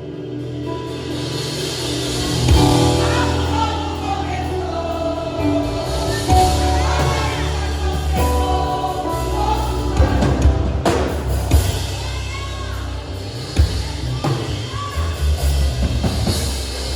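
Contemporary gospel worship song: a sung melody over a band with bass and drum kit.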